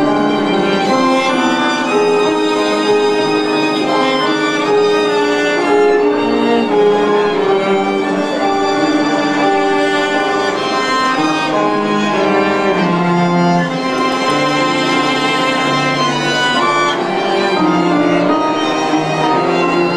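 A violin playing a melody of held, connected notes over a lower accompanying line.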